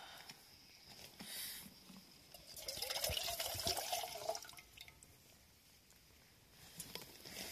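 Water pouring from an upturned plastic bottle into a Snow Peak Trek 700 titanium pot, a short splash about a second in, then a steady pour for about two seconds from two and a half seconds in.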